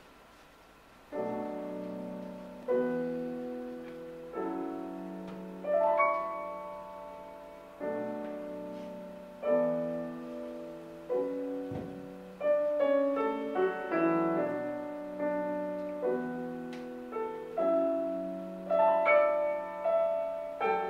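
Solo piano introduction: chords struck about every one and a half seconds, each left to ring and fade, with quicker notes from about halfway. It begins about a second in, after a moment of quiet.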